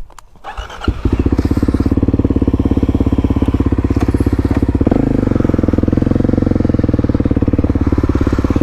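Single-cylinder motorcycle engine, which comes in loud and steadily pulsing about a second in; its note shifts around five seconds in as the revs change.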